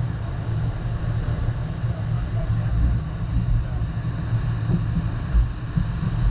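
Jet ski running on the water, a steady, uneven rumble with wind buffeting the microphone.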